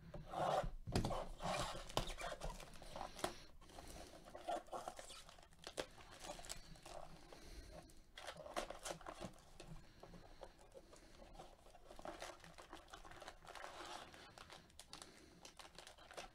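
Plastic shrink-wrap crinkling and tearing as a cardboard box of baseball cards is unwrapped and its flap pulled open. The sounds are faint, with small irregular crackles and rustles throughout.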